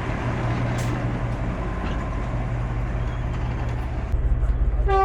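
A vehicle engine running steadily with a deep, even hum; about four seconds in, the low rumble grows louder.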